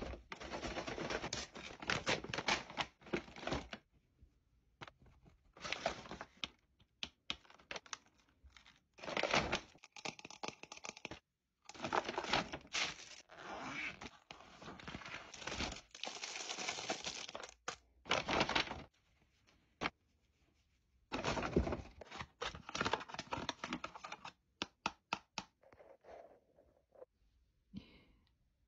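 Paper gift bag and packaging rustling and crinkling as it is handled and unpacked by hand. The sound comes in bursts, some brief and some several seconds long, with short quiet gaps between.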